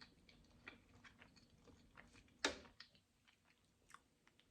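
Faint close-up chewing: quiet wet mouth clicks as food is chewed, with one sharper, louder mouth sound about two and a half seconds in.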